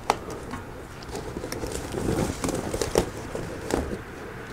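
Woven lauhala (bacbac) matting rustling and crackling as a stiff sheet is bent and pushed up against the ceiling by hand, with a few sharp clicks and taps, the loudest just after the start and another about three seconds in.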